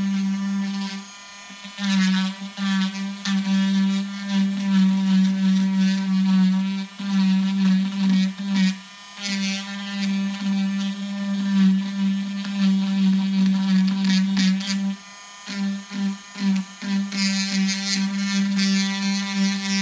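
Handheld Dremel rotary tool running at a steady high speed, its bit grinding into juniper wood to carve out deadwood, with grinding noise shifting as the bit bites. The motor cuts out for three short pauses.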